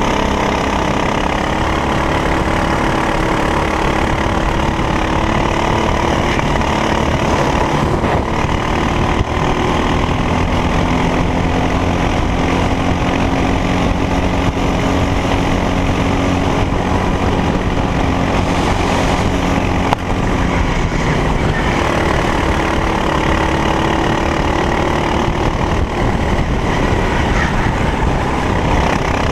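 Racing kart engine at full race pace, its pitch climbing steadily down the straights and falling away into the corners, over heavy wind and track noise.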